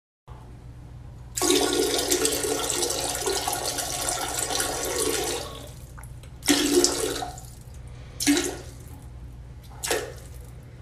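Toilet flushing: a loud rush of water for about four seconds, then three shorter bursts of rushing noise, over a steady low hum.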